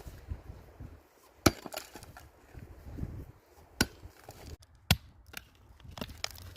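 Hand tool striking rock in separate sharp hits: three strong strikes spaced a second or more apart, with a couple of lighter knocks near the end.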